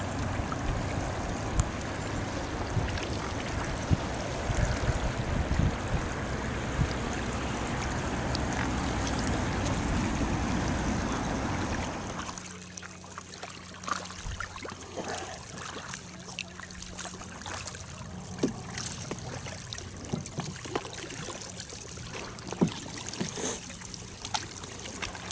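Canoe paddles moving through river water. A steady rush of water and wind noise on the microphone drops away after about twelve seconds to a calmer stretch of small splashes and drips from the paddle strokes.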